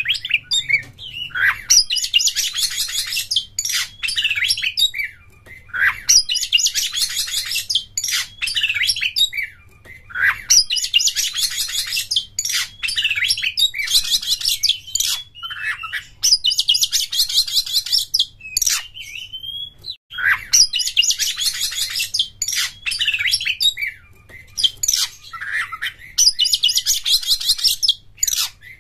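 Oriental magpie-robin (kacer) singing: dense, rapid trilled phrases about a second and a half long, repeated every three to four seconds, with single whistled notes and short glides between them.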